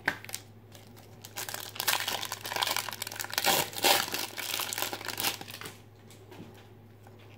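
A 1992 Fleer Ultra trading-card pack wrapper crinkling and tearing as it is opened by hand, starting about a second in and stopping a couple of seconds before the end.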